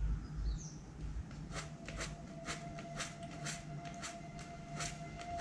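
A series of short scraping strokes, about two a second, from hand work on a punctured bicycle inner tube around the hole, while a faint steady tone sets in about a second and a half in.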